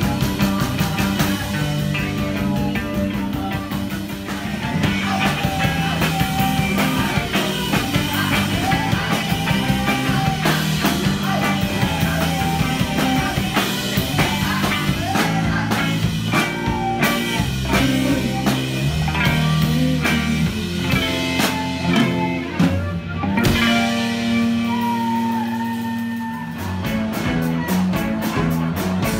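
Live rock band playing a song: electric guitars, bass and drum kit with a singer, with a brief break about two-thirds of the way through followed by a few seconds of long held notes before the beat returns.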